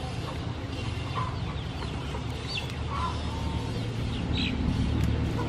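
Chickens clucking in the background, a few short separate calls, over a low steady rumble.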